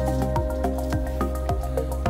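Background music: held notes with a steady rhythm of plucked notes.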